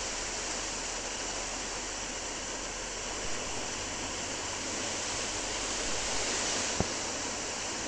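River water rushing: a steady, even wash of noise. A single sharp click sounds near the end.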